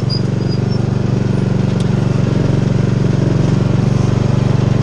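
Riding lawn mower engine running steadily while it tows a wagon carrying riders.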